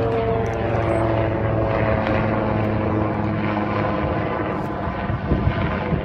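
Sikorsky S-92 twin-turboshaft helicopter flying overhead: steady rotor and turbine noise, its tones sliding slightly lower in pitch as it passes.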